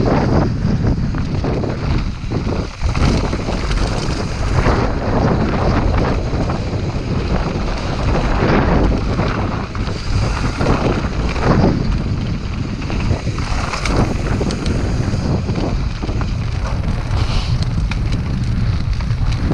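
Wind buffeting an action camera's microphone during a fast mountain-bike ride over a rough dirt trail, with scattered clicks and knocks from the tyres and bike over stones and bumps.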